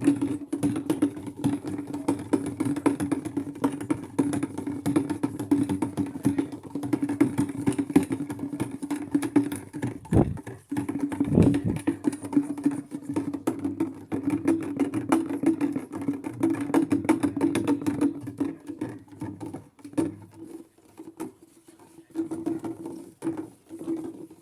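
Maytag top-load washing machine running on its delicate cycle: a steady motor hum with rapid, irregular clicking and knocking. There is a brief break with two low thuds about ten seconds in.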